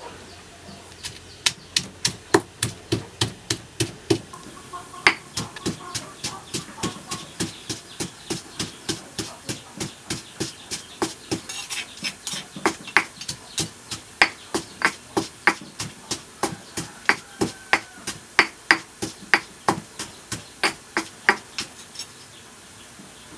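A pestle pounding in a stone mortar: sharp, regular knocks, about two to three a second, starting about a second and a half in and stopping near the end.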